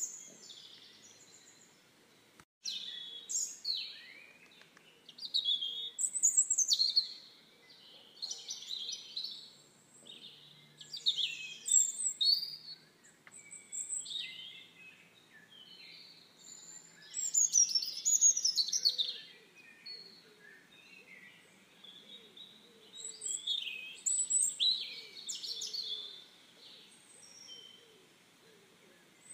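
Songbirds singing: short, high twittering phrases repeating every second or two with brief pauses between them.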